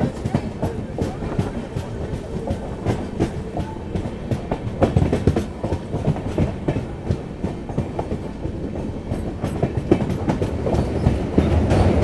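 Passenger train wheels clacking over rail joints and points, heard at the open door of a moving coach, with many sharp clicks over a low rumble. The rumble grows louder near the end as the coach rolls onto a steel truss bridge.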